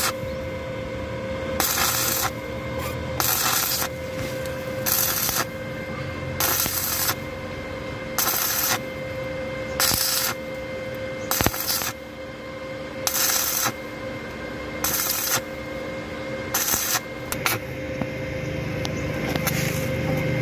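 A hand tool rasping on metal in regular strokes, about one every second and a half, over a steady hum.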